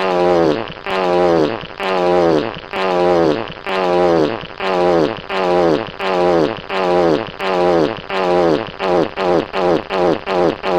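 Fart sound effect: the same fart, sliding down in pitch, repeated over and over, about once a second at first and speeding up to about two a second near the end.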